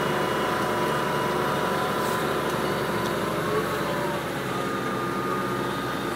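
Farm tractor engine running steadily under load while pulling a bedder through the soil.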